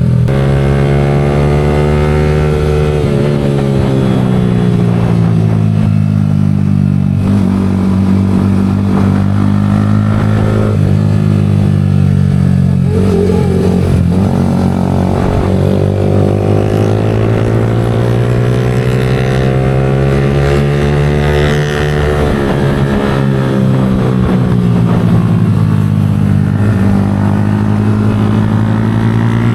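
Yamaha R15 V4 motorcycle's single-cylinder engine running through an aftermarket Leo Vince exhaust, its note rising and falling slowly several times as the revs change.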